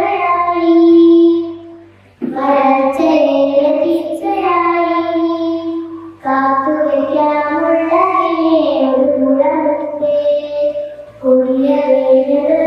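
A girl singing into a microphone, in sung phrases a few seconds long with brief breaks between them.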